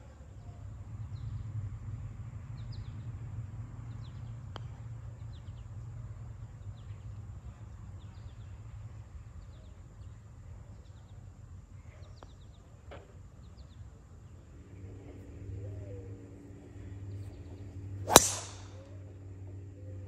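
Birds chirping over a low outdoor rumble, then about two seconds before the end a single sharp, loud crack with a short ringing tail: a driver striking a golf ball off the tee.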